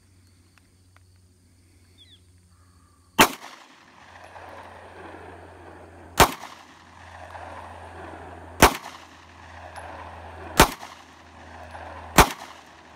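Five 9mm shots from a Ruger LC9s compact pistol, the first about three seconds in and the rest a couple of seconds apart, each trailing off in echo.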